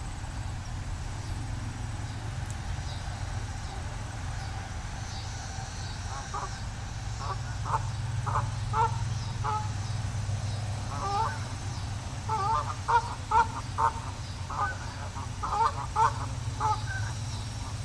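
Geese honking: a few scattered calls from about six seconds in, then a quick run of loud honks in the last few seconds, over a steady low rumble.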